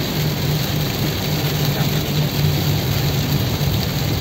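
Car in motion in heavy rain, heard inside the cabin: a steady engine hum under an even hiss of rain on the body and windshield and tyres on the wet road.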